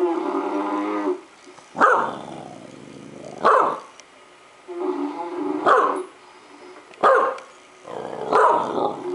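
Puppy barking repeatedly at a recording of his own snoring: about five sharp barks, with longer held, steady-pitched sounds between them.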